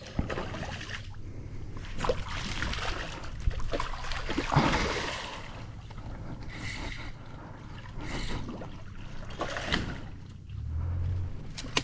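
Water splashing and lapping around a small boat, with scattered knocks and handling noises.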